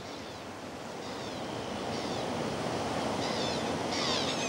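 Ocean surf washing in, a steady rush that slowly swells louder, with several short, wavering high bird calls over it, the clearest in the second half.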